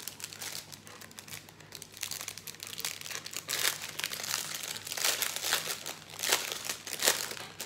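Clear plastic bags of diamond-painting drills crinkling as they are handled and opened, a run of short crackles that grows busier and louder after about three and a half seconds.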